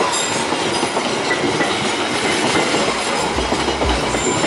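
Passenger train coaches rolling past close by: a steady loud rumble of steel wheels running over the rails.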